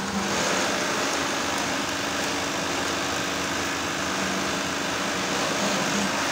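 Steady machine hum and whir of a sewing workshop, with industrial sewing machines running.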